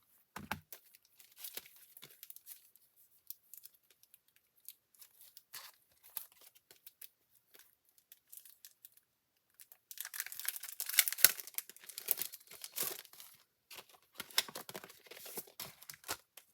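Craft-product packaging being handled and torn open: scattered small taps and rustles, then a few seconds of dense crinkling and tearing starting about ten seconds in.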